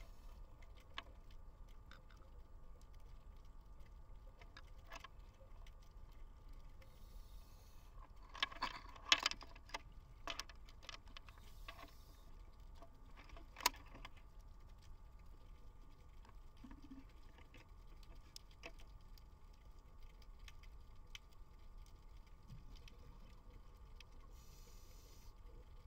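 Faint underwater ambience picked up by a camera sealed in an underwater housing: a steady low hum with scattered sharp clicks and taps, a cluster of louder clicks about nine seconds in and a single sharp click near fourteen seconds.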